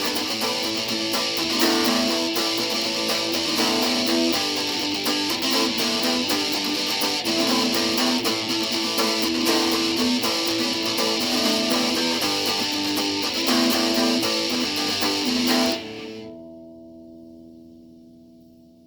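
Instrumental ending of a song: guitars strummed over a full band, then a last chord is held and rings away, fading out from about 16 seconds in.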